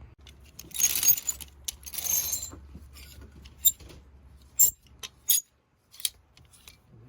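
Small metal objects jingling and clinking in two short shakes, then several sharp single clicks.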